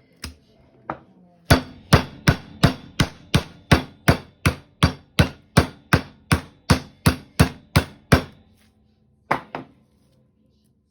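Chicken breast being pounded thin through plastic wrap on a cutting board. Two light taps, then a steady run of about twenty sharp whacks at roughly three a second, and two more near the end.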